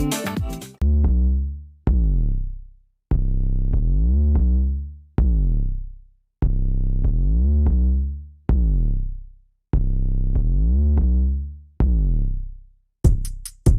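Electronic background music: deep synth-bass notes struck again and again, each fading away, with the full drum-machine beat coming back in just before the end.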